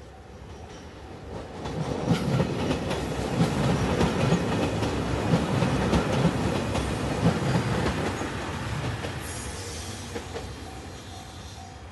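Red Anpanman-liveried express train passing close by: the sound swells about two seconds in, the wheels click rhythmically over the rail joints, then it fades over the last few seconds.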